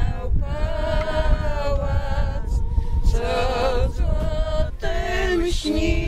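Unaccompanied singing of a Polish funeral hymn, slow long-held notes in phrases with short breaths between them, over a steady low rumble.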